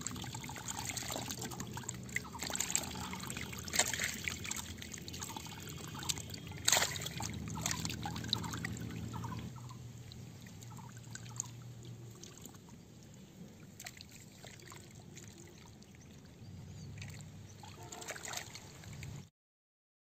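Fish wriggling and splashing in shallow muddy water: a steady trickling with many small sharp splashes, busiest in the first half and quieter later, cutting off suddenly near the end.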